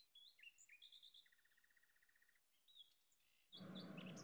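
Faint bird chirps and a short buzzy trill over near silence; a low background hiss and hum comes back about three and a half seconds in, with more chirps.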